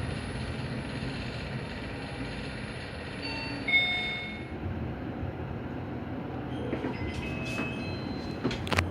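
Hyundai elevator car running with a steady hum. About three seconds in, an electronic chime of two quick notes sounds, and near the end there are a few sharp clacks.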